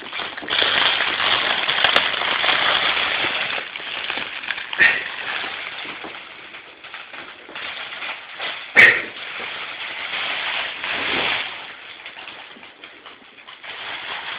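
Rustling and crinkling of a collapsible fabric cat tunnel being handled and swung with a cat inside, loudest over the first few seconds and then coming and going. There is a sharp knock a little past the middle.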